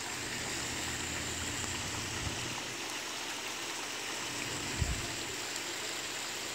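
Rock bubbler fountain in a pond splashing steadily, water spilling back onto the surface. A low hum stops about two and a half seconds in, and there is one brief low thump about five seconds in.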